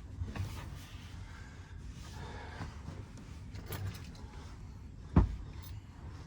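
A person shifting about on a bed: soft rustling, then a single dull thump about five seconds in, over a low steady rumble.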